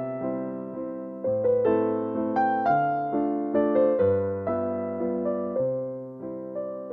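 Background music: gentle piano (electric piano) melody over slow bass notes.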